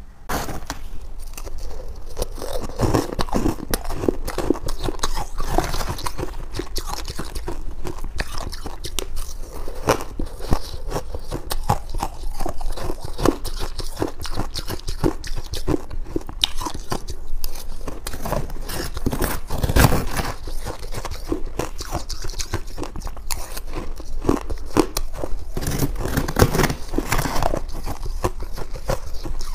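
Close-miked crunching and chewing of freezer frost ice, a dense run of crisp crunches, with a metal spoon scooping into the frost.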